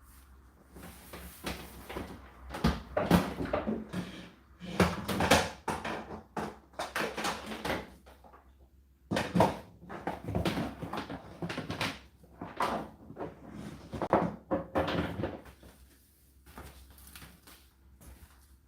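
Indesit IDC8T3 condenser tumble dryer giving irregular knocks and clatters, in clusters about a second apart with a short pause partway through, dying away near the end.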